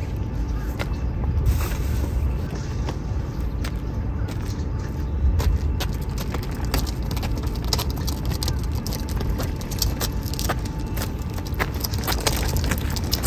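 Wind rumbling on the microphone, with scattered clicks and rattles of fishing gear as a cooler box is loaded into a folding cart and the cart is pulled over concrete.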